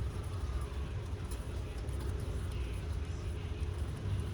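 Steady low rumble of background noise with a few faint clicks.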